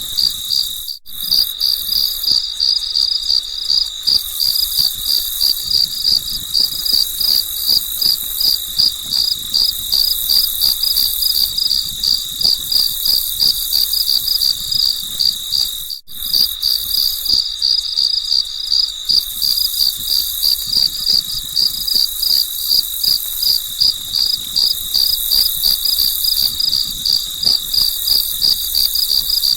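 Crickets chirping in a fast, even pulsing trill. It sounds like a looped nature-ambience track, cutting out briefly about a second in and again about halfway through.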